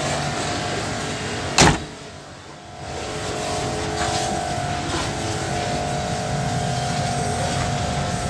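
A single loud slam about one and a half seconds in, a Maruti Omni van's door being shut, over a steady background noise.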